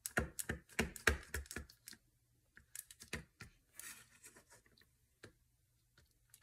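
Quick light tapping, about five taps a second for the first two seconds, then a few scattered small clicks and rustles: a cling stamp being dabbed on an ink pad to ink it.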